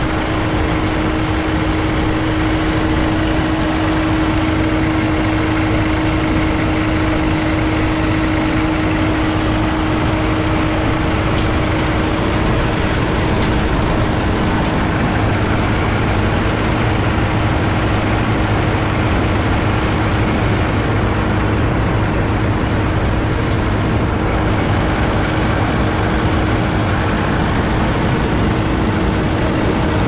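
Combine harvester running steadily: a loud, unchanging engine and machinery noise with a constant hum throughout.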